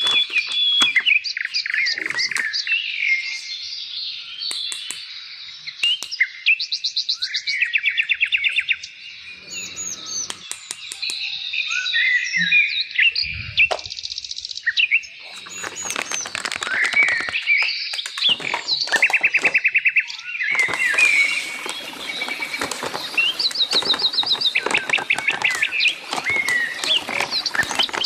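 Birdsong: several birds chirping and singing over one another, with fast trills of repeated notes.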